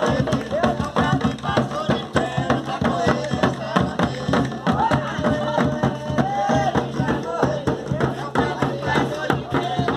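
Batuque folk music: voices singing a melody over a dense, steady percussion rhythm.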